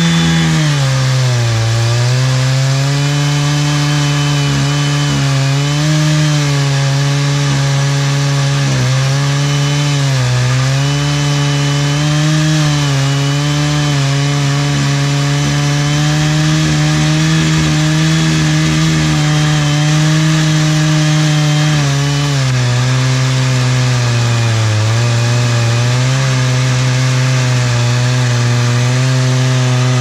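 Two-stroke chainsaw on an Alaskan chainsaw mill running near full throttle, ripping lengthwise through an ash log. The engine pitch sags several times under the load of the cut, most deeply about a second in and again past the two-thirds mark, then recovers.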